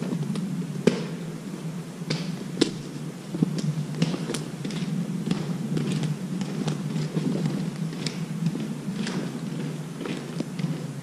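Irregular sharp clicks and knocks, a few every second, over a steady low hum.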